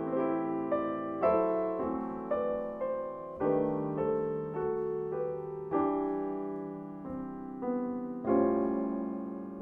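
Steinway grand piano played solo: a slow ballad in full chords, each struck and left to ring and fade before the next, about one every second.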